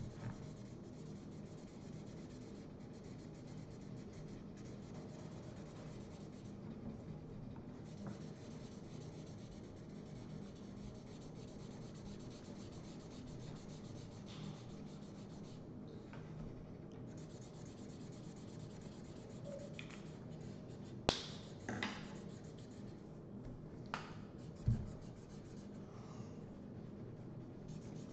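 Felt-tip markers rubbing and scratching on paper as two people colour in, with a few short, sharp clicks in the last third.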